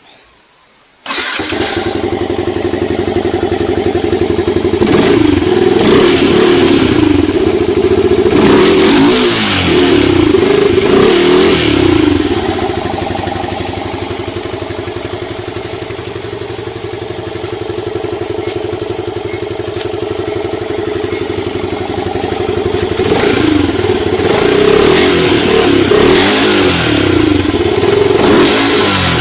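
Yamaha R15 2.0's single-cylinder four-stroke engine, fitted with a K&N air filter, starting about a second in and then being revved up and down in blips, settling to a steadier run in the middle before being revved again near the end.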